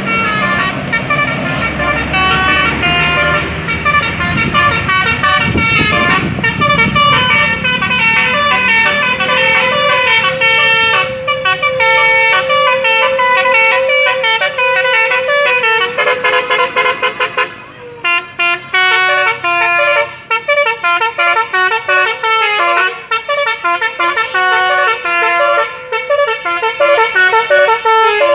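A bus's multi-tone 'telolet' musical air horn plays a tune of stepped notes. A long note is held from about ten seconds in, followed by quick runs of short notes. A low engine rumble lies underneath for the first several seconds.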